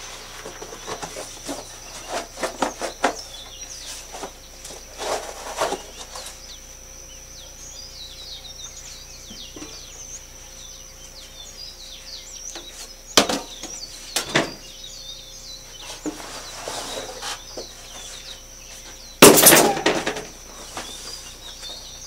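Cardboard packaging being handled while a concrete mixer is unboxed: rustling and scraping, with scattered clicks, two sharp knocks about 13 and 14 seconds in, and a loud thump with a burst of rustling about 19 seconds in. Birds chirp faintly in the background.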